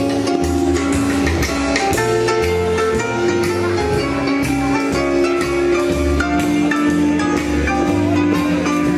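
A live swing-jazz band playing for dancers: guitar and drum kit keep a steady beat under a melody of long held notes, with low bass notes stepping along.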